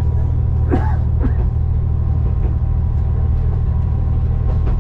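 KiHa 20-series diesel railcar under way, heard from inside the car: a steady low drone of the engine and running gear. A couple of brief higher sounds come about a second in.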